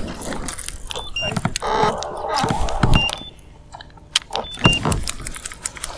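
Fishing tackle being worked from a boat: a reel whirring and clicking as a lure is cast and retrieved. Three pairs of short high beeps come about a second, three seconds and four and a half seconds in.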